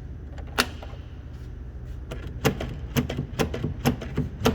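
Sharp mechanical clicks of a semi-truck door's freshly repaired lock and latch being worked: one click about half a second in, then a run of clicks about two a second from the middle on.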